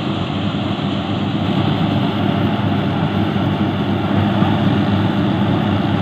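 Yanmar YH850 rice combine harvester's diesel engine running steadily under load while the machine cuts and threshes standing rice, a constant low drone with the threshing mechanism's noise over it.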